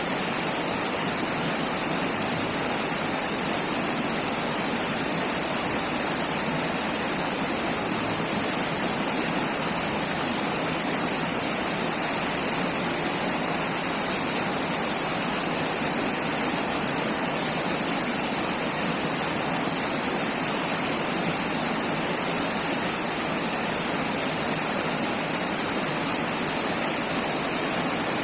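River water rushing and splashing in a steady, unbroken stream.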